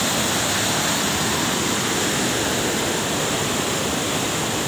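Waterfall pouring, a steady, even rushing of falling water.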